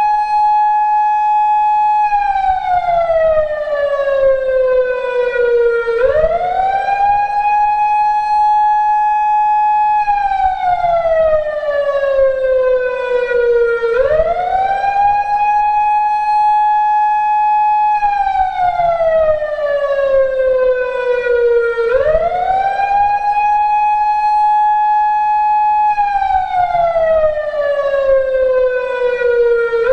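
PATLITE SAP-50 electronic siren amplifier sounding a slow wail. The tone rises quickly, holds high for a few seconds, then falls slowly, repeating about every eight seconds, almost four times over.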